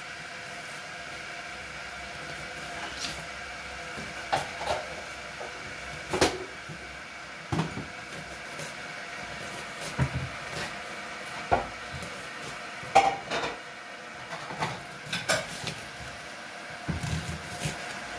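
Chef's knife chopping a red onion on a wooden cutting board: a dozen or so sharp, irregular knocks of the blade on the board, over a steady background hum.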